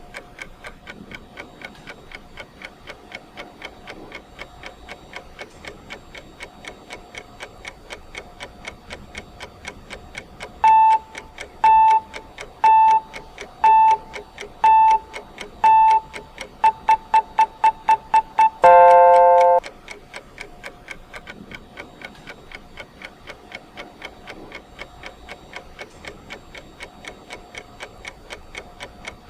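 Countdown timer's ticking clock, ticking steadily. About ten seconds in, six electronic beeps come about a second apart, then a fast run of beeps, and a louder, longer tone closes the run as the timer reaches a minute; the ticking carries on after it.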